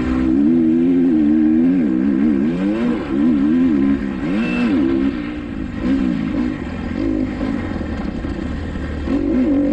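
Kawasaki KX250XC dirt bike engine being ridden hard, its note rising and falling over and over as the throttle is opened and closed and the gears are worked.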